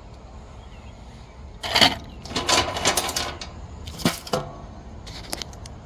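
Hand tools and small plastic parts being handled, giving short clattering clicks and rattles in several bunches, the busiest about two to three seconds in.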